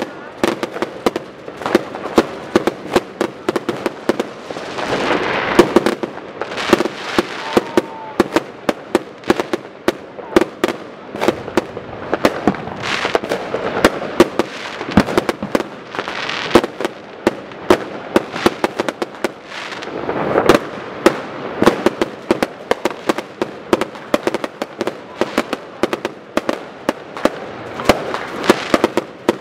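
Fireworks and firecrackers going off in a dense, continuous barrage: many sharp bangs a second, with swells of crackling.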